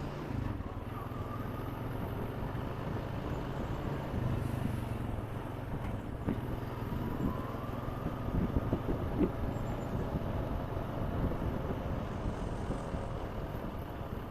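Honda Rancher 420 ATV's single-cylinder four-stroke engine running steadily while riding along a dirt road, with a few short knocks and rattles about halfway through.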